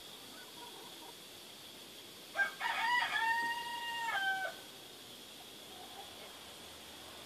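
A rooster crowing once, about two and a half seconds in: a few short opening notes, then a long held note that drops in pitch at the end, about two seconds in all.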